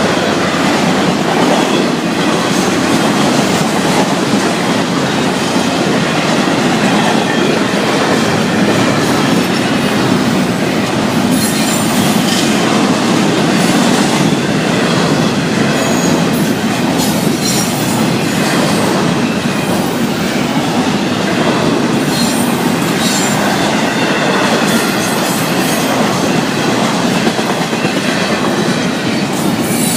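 Freight cars of a Florida East Coast Railway unit train rolling past: a steady, loud noise of steel wheels on the rails.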